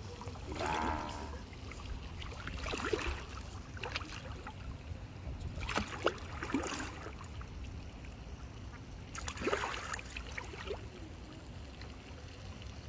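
A hooked fish thrashing at the water's surface beside the landing net, making several separate splashes.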